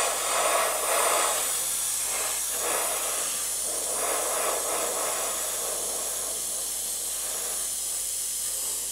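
Gravity-feed airbrush hissing steadily as it sprays paint, a little stronger in the first few seconds.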